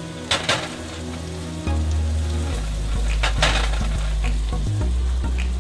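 Sliced zucchini sizzling and frying in a hot pan, with a few sharp clatters of stirring: two close together near the start and one past the middle.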